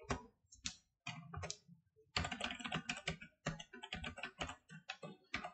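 Computer keyboard typing: a few separate keystrokes at first, then a quick, continuous run of key presses from about two seconds in.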